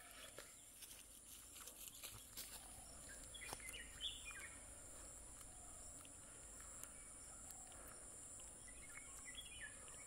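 Faint rural ambience: a steady high-pitched insect drone, with two short bird calls, about three seconds in and again near the end.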